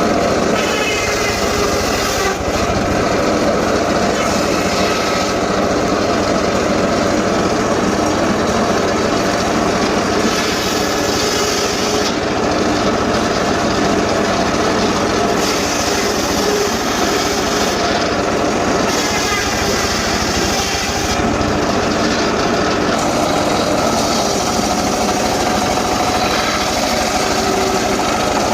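Engine-powered saw running steadily at high speed.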